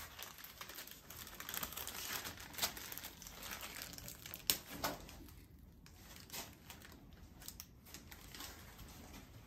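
Plastic packaging of a disposable embryo transfer sheath crinkling as it is handled, with a couple of sharper clicks.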